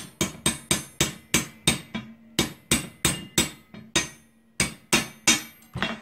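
Hammer blows on a steel punch held against a Hi-Lift jack's climbing mechanism: about eighteen sharp, ringing metal-on-metal strikes at roughly three a second, with two brief pauses. The punch is driving out a pin to take the jack apart.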